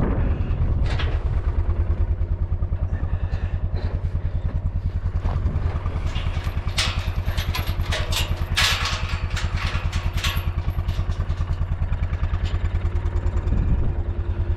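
A vehicle engine running with a steady low throb, with a spell of clattering and rattling in the middle.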